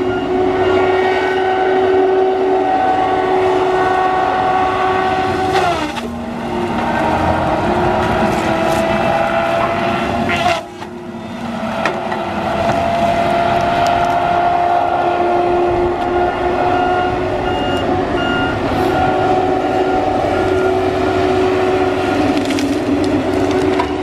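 Tigercat LX830D tracked feller buncher working, its FPT diesel engine and hydraulics running with a steady high-pitched whine. Twice, about 6 and 11 seconds in, the pitch sags sharply with a short crack as it cuts, then climbs slowly back.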